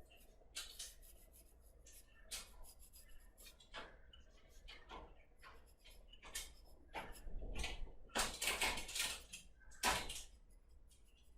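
Drawing strokes scratching across paper in an uneven rhythm while shading, with a quicker, denser run of strokes about eight to nine seconds in.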